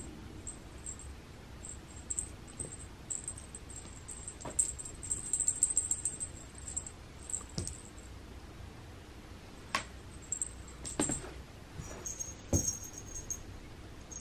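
A cat's wand toy with a feathered, beaded lure jingling and rustling in short spells as it is dangled and batted at. Three sharp taps come in the second half.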